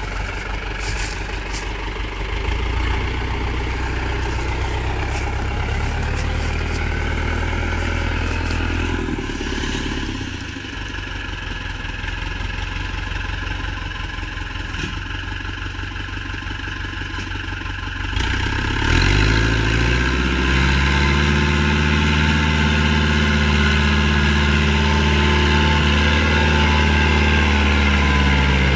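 Tractor engine running steadily. About two thirds of the way through it revs up and holds at higher revs, louder.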